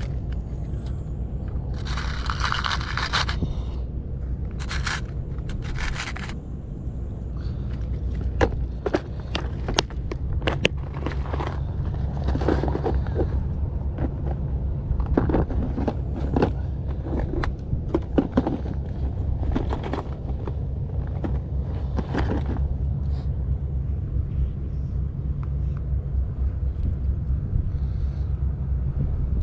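Steady low rumble of wind on the microphone, with scattered knocks, clicks and scrapes, and a few short rustling hisses in the first several seconds.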